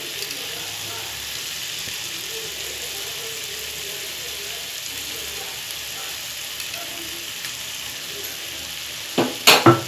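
Chopped vegetables and sweet corn sizzling in a frying pan, a steady hiss. About nine seconds in, a few sharp clinks of a metal spoon against the pan as stirring begins.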